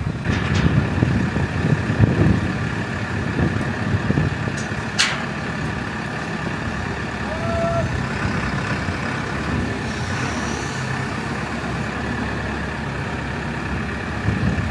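Diesel engine of a construction machine (loader or digger) running steadily, with a thin steady whine over it and a sharp click about five seconds in.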